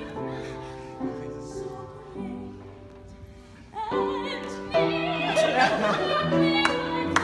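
Upright piano playing a few chords that die away, then an operatic soprano voice comes in loudly with wide vibrato about four seconds in, singing over the piano accompaniment.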